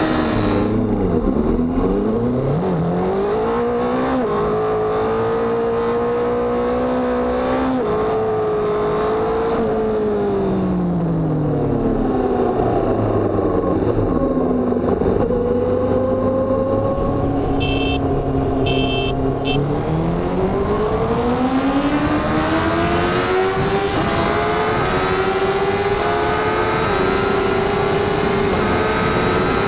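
Honda CBR1000RR Fireblade's inline-four engine heard from onboard at speed, with wind noise: the revs fall and rise several times with throttle and gear changes, ease off and hold steady, then climb steadily through the gears in the second half, dipping briefly at each upshift.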